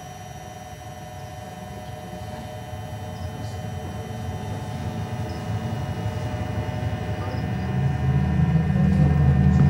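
A deep, low drone that swells steadily louder, with a few faint steady high tones held above it.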